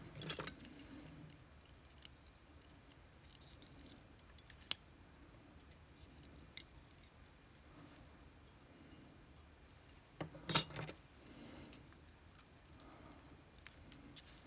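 Small metallic clicks and clinks of steel tweezers and brass lock pins as pins are picked out of a disassembled Vachette V-DIS+ lock cylinder, with a louder clatter about ten seconds in.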